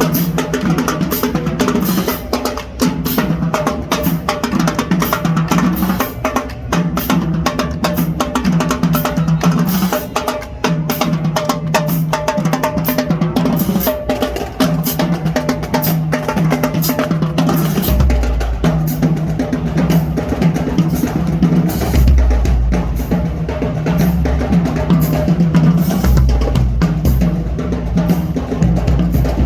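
Band music driven by fast, dense drumming over a repeating bass line; a much deeper bass comes in about halfway through and keeps pulsing to the end.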